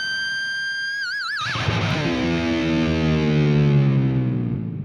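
Distorted electric lead guitar holding a high note, then shaking it with wide vibrato about a second in; lower notes follow and ring out through a plate reverb, the reverb tail starting to fade near the end.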